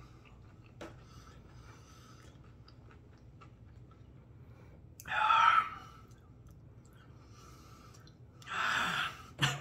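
A man chewing a spicy chicken sandwich, with faint mouth and breathing sounds, a short pitched vocal squeal about five seconds in, and a sharp hissing breath near the end.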